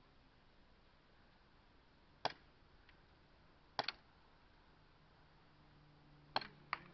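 Airsoft guns firing: single sharp pops, one about two seconds in, then a quick pair near four seconds and another pair near the end.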